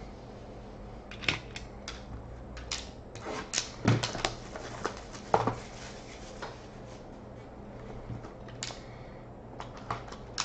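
A sealed trading-card box being opened and handled: scattered clicks, taps and short crinkling rustles of cardboard and wrapping, busiest a few seconds in and again near the end.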